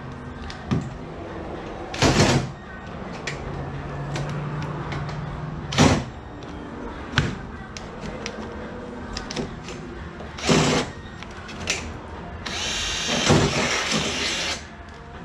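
Power drill running in short bursts, opening up bolt holes so a strut tower brace lines up, with sharp knocks of tools and metal parts between. The longest run, about two seconds, comes near the end.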